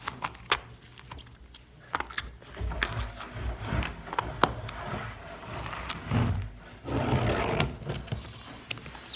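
Slime being squeezed and handled, with soft squelching and scattered small clicks and pops.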